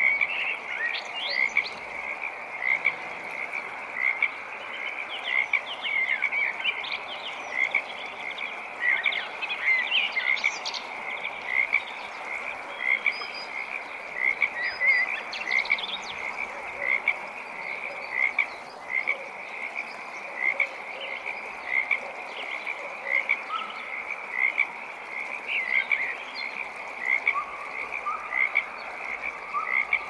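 Frogs calling at a pond: one short call repeated at a steady pace over a dense background chorus, with higher, shorter calls mixed in for a while.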